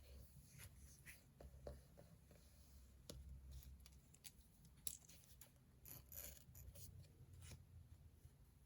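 Faint desk-study sounds: a pen scratching on paper, with scattered small clicks and taps.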